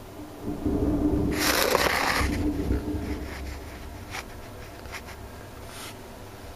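Thunder heard from indoors through a window: a sudden low rumble about half a second in, with a sharper crack near its peak, fading over about three seconds, followed by a few faint clicks.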